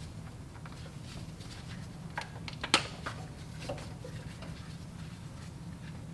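Spark plug wires being pulled and handled in a V8 engine bay: a few light plastic-and-rubber clicks and one sharp click about three seconds in, over a low steady hum.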